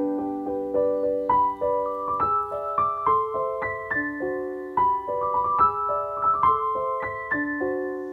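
Background piano music: a gentle melody of ringing notes over soft held chords.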